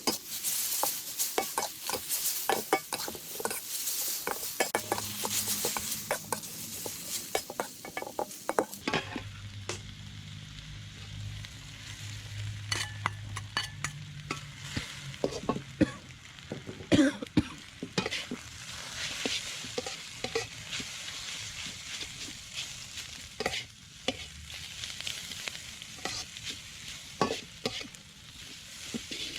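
Instant noodles being stir-fried in a hot pan: sizzling, with a spatula scraping and clacking against the pan again and again. The sizzle is strong at first, drops back about nine seconds in, and builds again later, while the scraping goes on.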